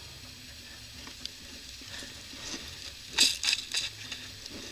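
Dry fallen leaves crackling and rustling under a person moving on leaf litter, with a burst of loud crunches about three seconds in, over a faint steady hiss.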